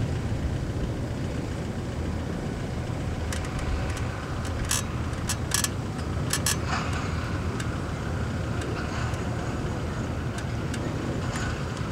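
Ilyushin Il-76TD's four Soloviev D-30KP turbofan engines rumbling steadily at takeoff power as the jet climbs away, with a few sharp crackles about four to seven seconds in.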